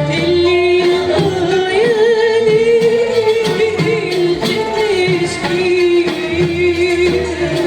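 A woman singing a long, held line in Arabic classical style with wavering ornaments, climbing a little and settling back, while an Arabic music ensemble accompanies her.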